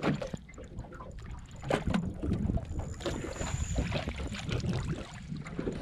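Water splashing and sloshing as a rubber-mesh landing net is scooped through the water under a fish and lifted out, water streaming from the mesh. Wind rumbles on the microphone.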